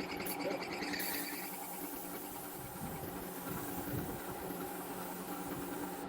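Repurposed air-conditioner compressor running with a steady mechanical hum, with a short hiss about a second in.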